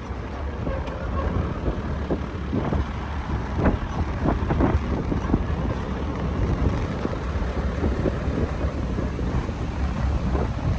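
Wind buffeting the microphone: a steady low rumble with irregular gusts, strongest in the middle.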